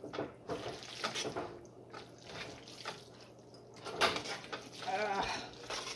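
Metal spaghetti server stirring and tossing sauced spaghetti in a stainless steel stockpot: wet squelching and scraping against the pot in irregular strokes, the strongest about four seconds in. A brief wavering tone sounds about five seconds in.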